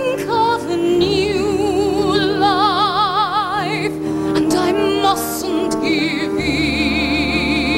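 A woman singing a slow Broadway ballad with wide vibrato, holding long notes, over sustained orchestral accompaniment.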